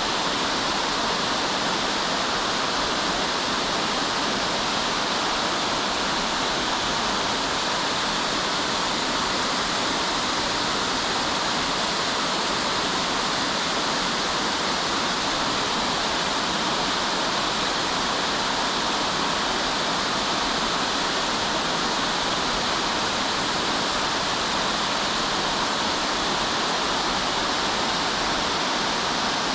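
Waterfall rushing steadily, a calm murmur of falling water that stays even throughout, with little deep rumble.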